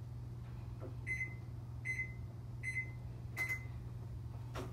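Oven's digital control panel beeping four times, short high beeps a little under a second apart, as the keypad is pressed to set the baking temperature, over a steady low hum.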